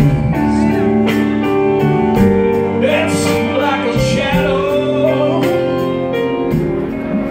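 Live blues band playing: a Hammond-style organ holding chords under a violin line, with drums keeping a steady cymbal beat and a voice singing.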